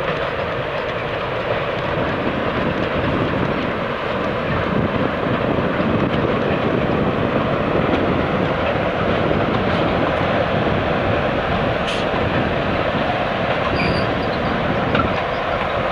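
A diesel-hauled passenger train with two locomotives passing along the line, a steady engine and rail drone that grows slightly louder as it comes by.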